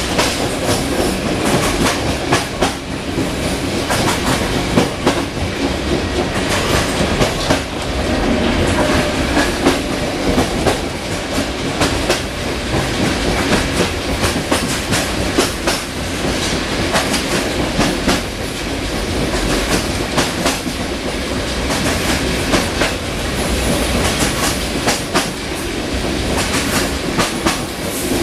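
Bogie of a double-decker passenger coach running at speed: a steady rumble of wheels on rail, broken by frequent sharp clicks and knocks as the wheels cross rail joints. It is heard from the coach's vestibule with the outer door open.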